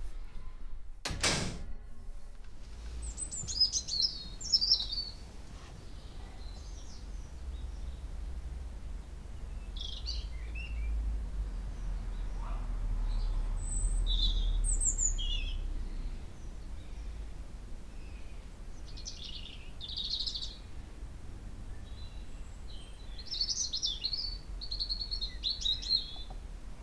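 Songbirds chirping in short scattered high calls over a steady low rumble of city background noise. A single heavy thump sounds about a second in.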